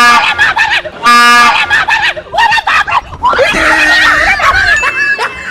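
Two short, loud blasts of a train-horn sound, one at the start and another about a second in, followed by a person screaming.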